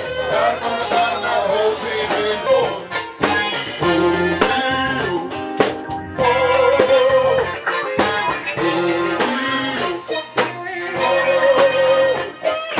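Live R&B band playing: a male singer's voice over electric guitar and drum kit, with held, wavering sung notes.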